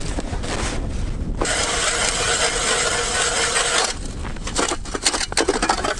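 Hand ice auger drilling through ice: the blades make a steady grinding scrape for about two and a half seconds, then it stops, and a few sharp knocks and clicks follow.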